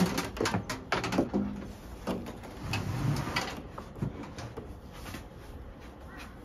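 A microwave oven being set down and pushed across a carpeted floor into place: a run of knocks, bumps and scrapes over the first four seconds or so, then only faint handling noise.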